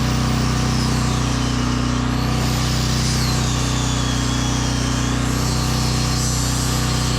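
Power sander working a carved wooden pumpkin; its high whine drops and climbs again several times as it is pressed into and eased off the wood. Under it is the steady hum of a running generator.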